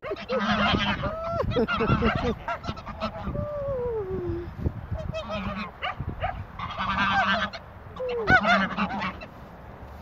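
A flock of domestic geese honking and calling in several overlapping bursts, with one long call sliding down in pitch about three seconds in.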